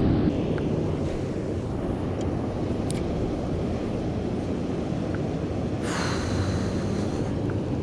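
Steady low rumble of wind on the microphone outdoors, with a brief hiss about six seconds in.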